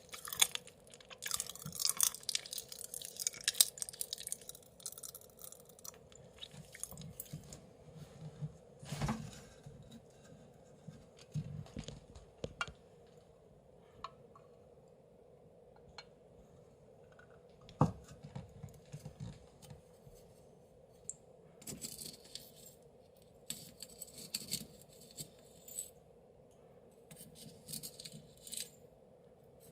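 Close-miked chewing and crunching of Pachi Pachi Panic popping candy with ramune tablets. Dense crackling comes in the first few seconds and again after about twenty seconds, with scattered single clicks in quieter stretches between.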